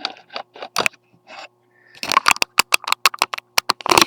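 Handling noise as the camera is turned around and repositioned: a few scattered clicks, then a quick run of sharp clicks and knocks about halfway through, loudest just before the end.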